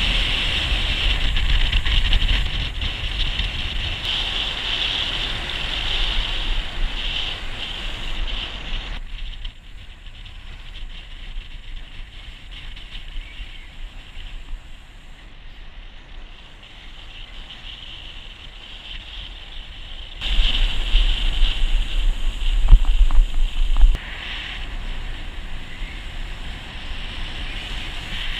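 Wind rushing and buffeting over the camera microphone of a bicycle descending a mountain road at speed. It drops abruptly about nine seconds in, comes back loudly about twenty seconds in, and falls again a few seconds later.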